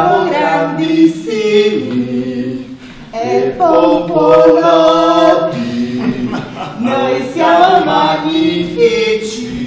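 Several voices singing together without instruments, a short chant-like song in three phrases with held notes.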